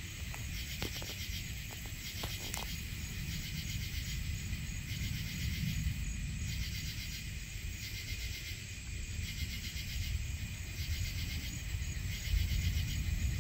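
Night insects calling in a steady chorus of rapid high pulsing trills that come in repeated bursts, over a low rumble that swells near the end.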